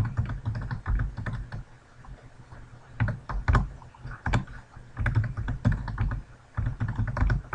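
Typing on a computer keyboard, keying in phone numbers: runs of quick keystrokes with short pauses between them, the longest pause about two seconds in.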